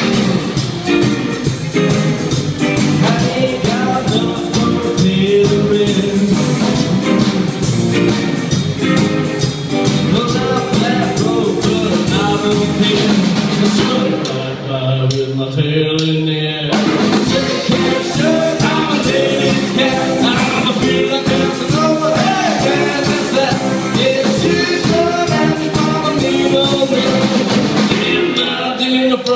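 Live rockabilly trio playing: electric guitar, slapped upright double bass and drum kit. The drums and cymbals drop out for a couple of seconds about halfway through, then the full band comes back in.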